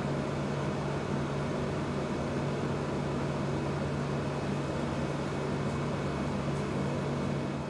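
Steady low hum with a faint hiss: the room's background noise, with no other sound.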